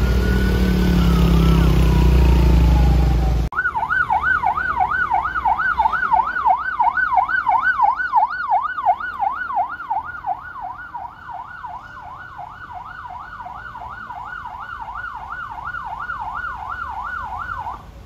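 Police car siren. First a slow wail, rising and falling, over a loud low rumble. After an abrupt cut about three and a half seconds in, it becomes a fast yelp cycling about three times a second, which grows fainter in its second half.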